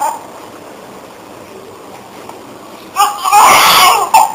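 Newborn baby crying: a cry breaks off, then after a pause of about three seconds with only a low hiss, loud crying starts again.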